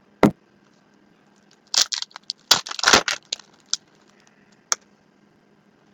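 Trading card pack wrapper crinkling and tearing in a crackly burst from about two to three and a half seconds in, with a few single sharp clicks of card handling before and after.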